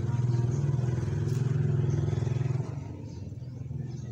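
A motor vehicle's engine running close by with a steady low hum, dropping off abruptly about two and a half seconds in.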